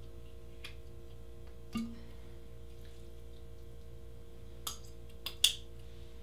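A few light clicks and clinks from a small glass vinegar bottle being handled and tipped over a salad bowl, three of them close together near the end, over a steady faint hum.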